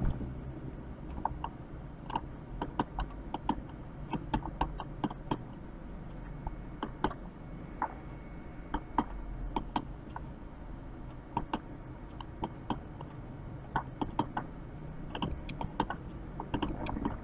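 Irregular clicks and taps from a computer keyboard and mouse, several in quick pairs, over a low steady background hum.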